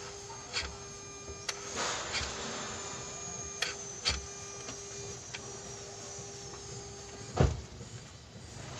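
Electronic throttle body of a Mitsubishi Mirage G4, its motor holding the butterfly plate open with the key on: a steady electric whine with a few light clicks. About seven seconds in, a sharp clack as the plate snaps shut, and the whine stops.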